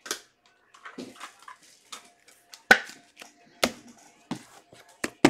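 Trading card packs and card boxes being handled on a tabletop: scattered light taps and knocks with soft rustling, the sharpest knocks about two and three-quarter seconds in and at the very end.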